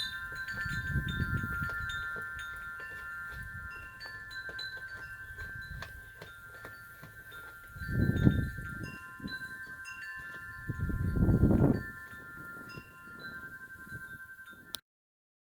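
Chimes ringing steadily, with short higher notes dotted over them. Low rumbles swell up twice, about 8 and 11 seconds in. It all cuts off suddenly near the end.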